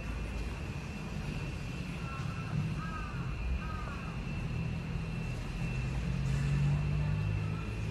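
Honda CB1300 Super Four SP's 1,284 cc inline-four engine idling steadily, growing slightly louder near the end.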